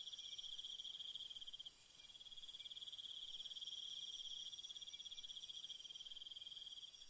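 Faint, steady chorus of chirping insects: a continuous high, finely pulsing trill.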